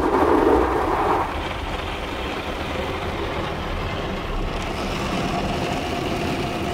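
Automatic car wash at work, heard from inside the car: water and soap spraying against the windows over the steady noise of the wash machinery, louder for about the first second.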